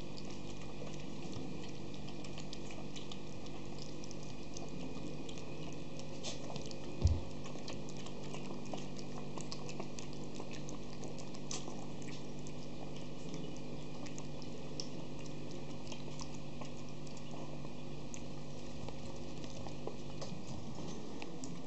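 Schipperke puppies lapping liquid from an enamel bowl: a run of small, quick wet ticks and laps, with one dull thump about seven seconds in.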